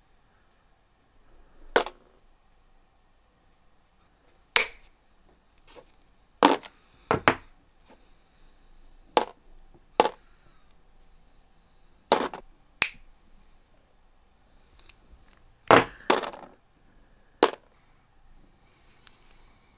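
A series of about a dozen sharp knocks and clacks at uneven intervals, hard objects striking or being set down, each one short with a brief ringing tail, two or three coming close together in pairs.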